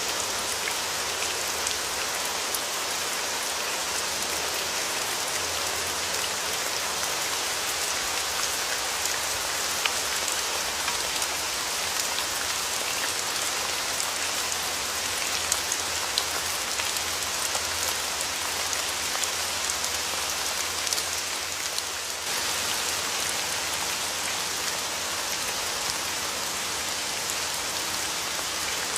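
Steady rain falling, an even hiss with the sharp ticks of single drops standing out. The sound shifts slightly about three quarters of the way through.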